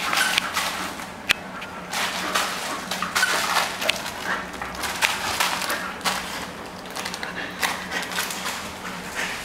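A bull terrier playing with a ball toy on a tiled floor: its claws click and scrabble on the tiles and the toy knocks along the floor, with one sharp knock about a second in. A faint steady low hum runs underneath.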